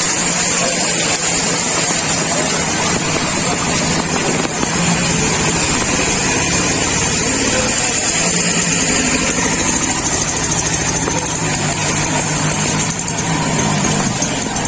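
A motor engine running steadily under a constant hiss, with a low hum that holds throughout.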